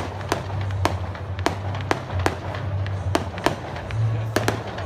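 Aerial fireworks shells bursting in an irregular series of sharp bangs and cracks, roughly three a second, over a steady low hum.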